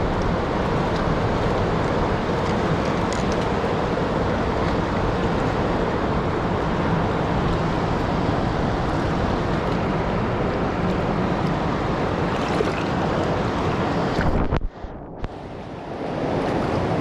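Steady rush of river water flowing over rocks. The sound drops away sharply for a moment near the end, then returns.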